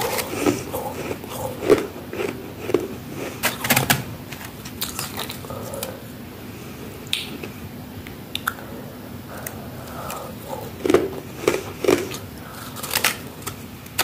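Bites and chewing of crispy, soft freezer frost, a dense crunching of ice crystals. It comes in bursts during the first four seconds and again from about eleven seconds in, with a quieter stretch of small crackles between them.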